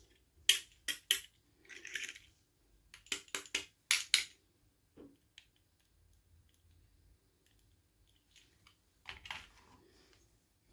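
Small toy pieces and packaging being handled: sharp clicks and taps in quick groups, with short rustles about two seconds in and again near the end.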